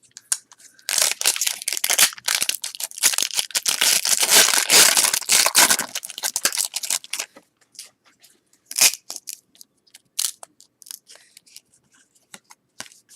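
A trading-card pack wrapper is torn open and crinkled for about six seconds, starting about a second in. Scattered light clicks and snaps follow as the cards are handled.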